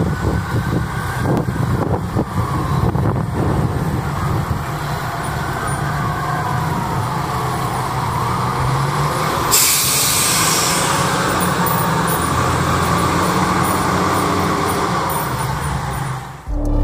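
Fire engine's diesel engine running as the truck pulls out and drives off, with a siren wailing in slow rising and falling glides. A sudden hiss of air, like an air-brake release, breaks in about ten seconds in; music starts right at the end.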